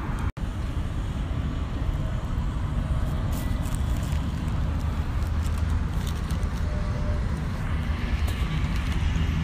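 Wind buffeting a phone microphone outdoors: a steady low rumble. It drops out for an instant near the start.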